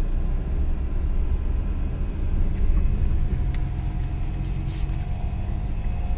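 Suzuki DA64 minivan driving, heard from inside the cab: its small three-cylinder K6A engine, running on a newly replaced ignition coil, under a steady low rumble of engine and road noise. A brief hiss comes about four and a half seconds in.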